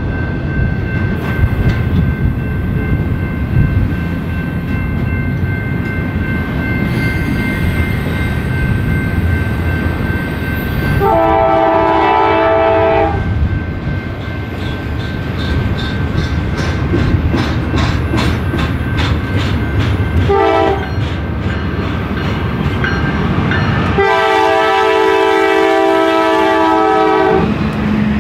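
Diesel freight train passing with a steady low rumble of engines and wheels, and a rhythmic clicking of wheels over rail joints in the middle. The locomotive's air horn sounds a chord in a long blast about eleven seconds in, a short blast around twenty seconds, and another long blast near the end.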